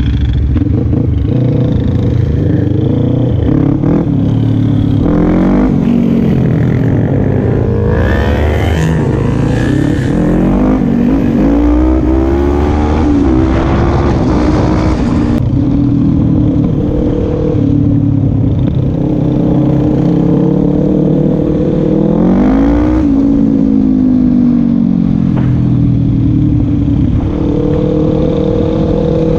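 Quad bike (ATV) engine heard from on board while riding on the road, revving up and falling back as the rider shifts through the gears. The pitch climbs sharply several times and holds steady in between.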